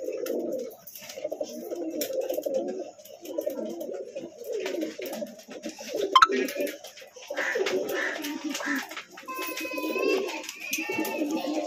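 Domestic pigeons cooing over and over, low pulsing calls about a second long each. A brief, loud squeak comes about six seconds in, and a few higher whistled notes near the end.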